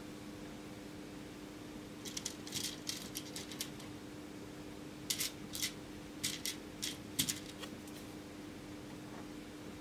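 Light clicks and rattles of a circuit board and small electronic components being handled, in two short flurries a few seconds apart, over a steady low hum.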